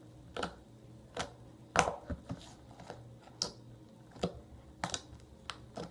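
Fluffy slime being poked by hand, giving a series of short sticky clicks and pops about once or twice a second.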